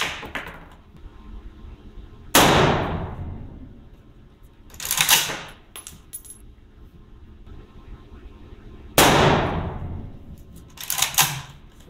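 Two shots from an SVD Dragunov rifle in 7.62×54mmR, about 2 seconds in and again about 9 seconds in. Each starts abruptly and fades in a long echo. Between and after the shots are shorter metallic clacks, which fit the bolt carrier being worked by hand because the rifle's gas system is not cycling the action.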